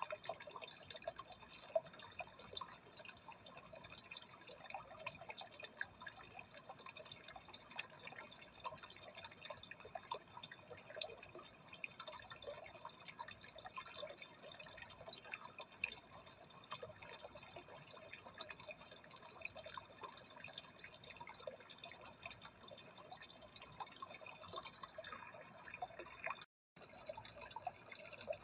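Aquarium water trickling and dripping steadily, a fast patter of small drips and splashes. It cuts out for a split second near the end.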